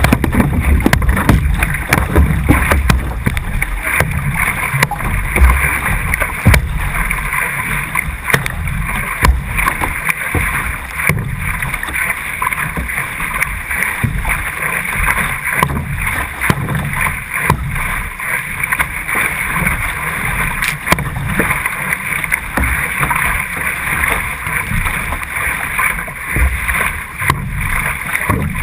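Water rushing along a racing C1 canoe and the splash of its paddle strokes, heard from a camera mounted on the canoe's deck, with a steady low rumble under many short knocks and splashes.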